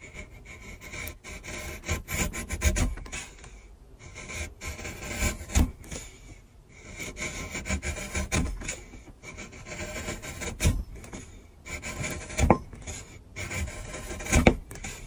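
Flat steel scraper blade scraping along the edge of a wooden block, lifting curled shavings: repeated rasping strokes, with a sharper, louder stroke every couple of seconds.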